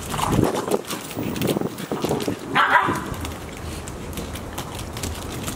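Golden retriever puppies about nine weeks old barking in short bursts while they play-fight, the loudest bark about halfway through, then quieter.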